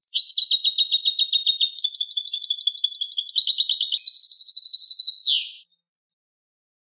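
European goldfinch singing one long phrase of fast, repeated twittering notes that step to new pitches, jumping higher about four seconds in and ending with a quick downward slur just after five seconds.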